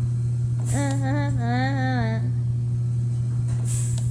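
A woman humming a short wordless tune for about a second and a half, starting under a second in. It sits over a loud, steady low hum, and there are two brief hisses, one as the humming starts and one near the end.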